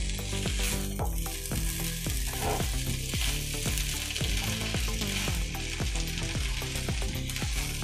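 Noodles with vegetables and sausage sizzling steadily in a hot frying pan while a silicone spatula stirs and tosses them, with repeated soft scrapes against the pan.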